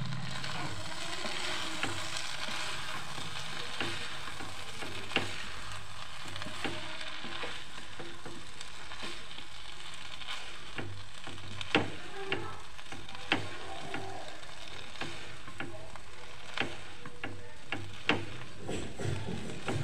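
Fusilli pasta with peas sizzling in a hot pan as it is stirred: a steady frying hiss, with scattered sharp knocks of the stirring utensil against the pan.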